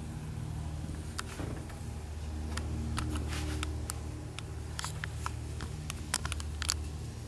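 Mazda 13B two-rotor rotary engine idling with a steady low hum, with scattered small clicks and rustles from handling close to the microphone.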